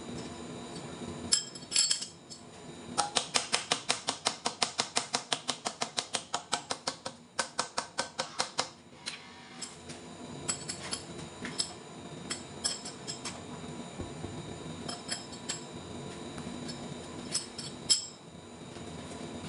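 A fast, even run of sharp metallic clicks, about seven a second, starts about three seconds in and lasts some six seconds. Single light metal clinks and taps follow as the work is set up on a large lathe, all over a steady machine hum.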